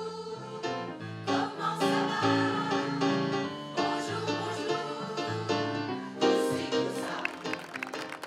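Amateur mixed choir of men and women singing in parts, held chords moving from one to the next every second or so, fading near the end.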